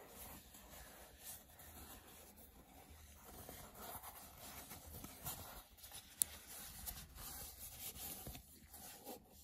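Faint rubbing and rustling of a neoprene knee brace being handled and flexed, with small ticks and one sharp click about six seconds in.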